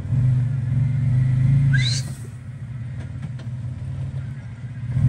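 Mitsubishi Montero's engine running under load, louder for about two seconds and then easing back to a lower, steady rumble. A short rising squeak sounds just as it eases off.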